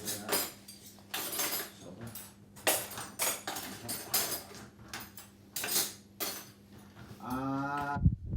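Dishes and cutlery clinking and clattering in quick, irregular knocks as they are unloaded from a dishwasher and put away. Near the end, a short pitched voice-like sound, then the sound cuts off suddenly.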